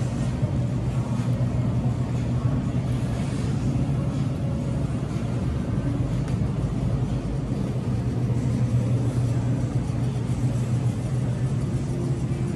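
Steady low hum and rumble of supermarket background noise beside the open refrigerated meat cases.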